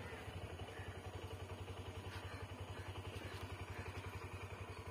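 Motorcycle engine idling with a fast, even putter while the bike is being parked.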